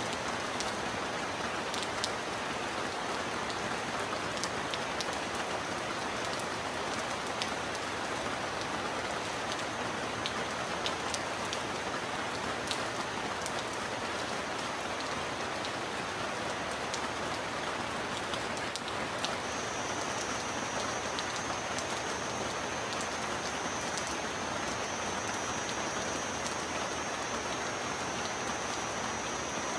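Steady heavy rain: an even, dense hiss with scattered sharp drop ticks and no thunder. A thin, steady high tone runs beneath it and gets louder about twenty seconds in.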